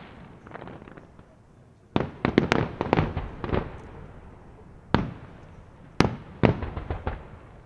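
Aerial firework shells bursting in the sky: a rapid cluster of bangs about two seconds in, a single bang near the middle, then two more bangs followed by a few smaller reports, each echoing away.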